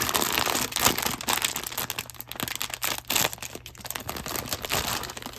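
Blind-box packaging being crinkled and torn open by hand: a dense run of rustling and crackling with quick sharp crackles, starting abruptly.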